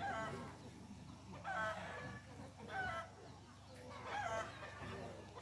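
Short, wavering animal calls repeated five times, a little over a second apart.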